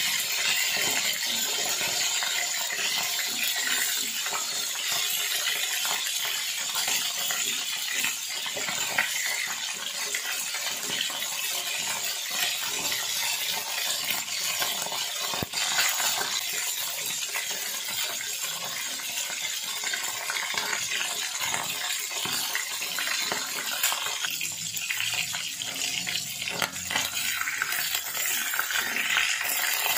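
Whole tulingan (frigate tuna) frying in hot oil in an aluminium wok, sizzling and crackling steadily. A wooden spatula scrapes and knocks against the pan while turning the fish near the start and near the end.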